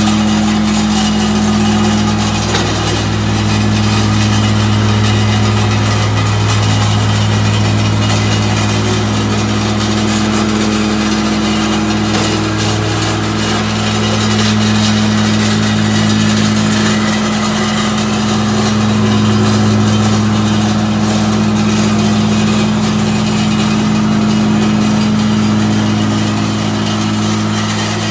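Vibratory plate compactor running steadily as it is walked over a wet sand bed: an even, loud engine hum with slight rises and dips in level.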